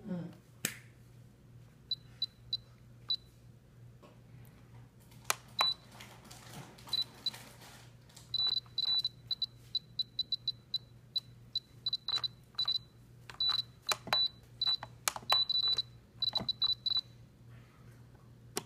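Short, high electronic key beeps from a T-Six six-channel 2.4 GHz RC transmitter as its menu buttons are pressed. They come singly at first, then in quick runs of several a second through the second half, mixed with sharp clicks of the buttons and handling.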